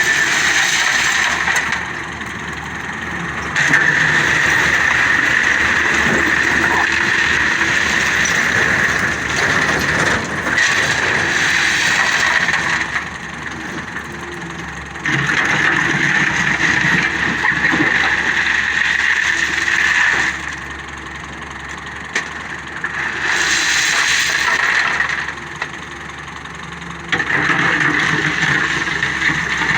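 JCB backhoe loader's diesel engine running under hydraulic load, switching abruptly several times between louder, higher-pitched stretches and quieter ones. A few sharp knocks of the bucket against rock come through.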